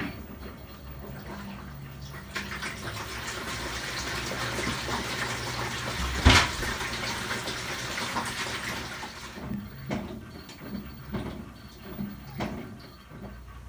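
Water churning and sloshing in the empty tub of an LG WT7800 top-load washer as its impeller agitates during the rinse of a tub-clean cycle. The rush of water swells to one loud splash about halfway through, then eases into a few separate sloshes near the end.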